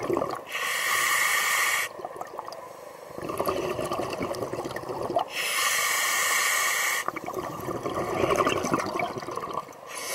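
Scuba diver breathing through an open-circuit regulator: a hissing inhale alternates with a longer bubbling exhale, about three breaths in turn.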